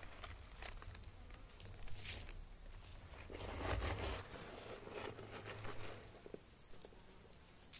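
Dry rustling, crinkling and scratching of things being handled, loudest about three and a half to four seconds in, over a low rumble that fades out about six seconds in.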